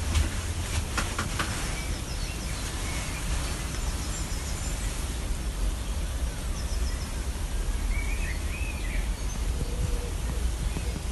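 Steady low rumble and hiss of background noise, with a few faint bird chirps about eight seconds in.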